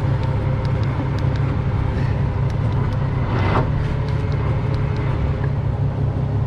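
Wrecker's diesel engine running steadily while its underlift is worked by remote, with a short hiss about three and a half seconds in.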